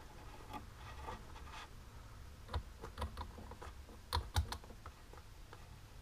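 Light clicks and taps of long fingernails against a nail-polish bottle and its brush cap as they are handled, an irregular run of small clicks with two louder ones close together about four seconds in.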